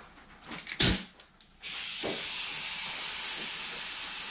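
A sharp click just under a second in, then a steady loud hiss of compressed air from a pneumatic body saw as it is triggered.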